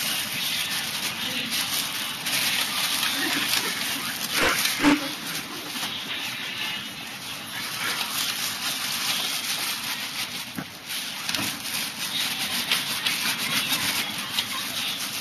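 Shiba Inu making dog sounds over a steady background hiss, with a brief louder sound about four and a half seconds in.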